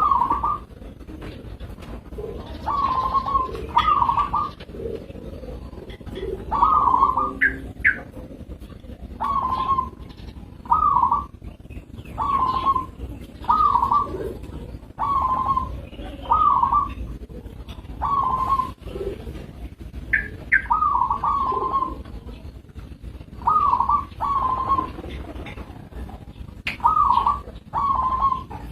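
Zebra dove (perkutut) cooing: short rolling coo notes repeated about once every second or so, in runs of two or three with brief pauses between.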